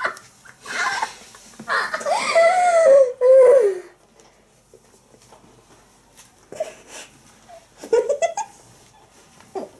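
A cat meowing loudly, with one long wavering, falling call, while people laugh. Shorter cries and laughs come again later on.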